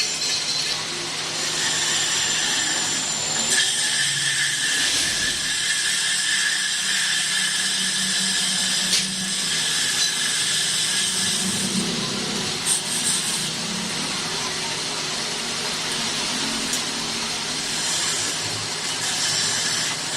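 A power tool running steadily on metal, giving a continuous high hiss with a thin steady whine through the first half.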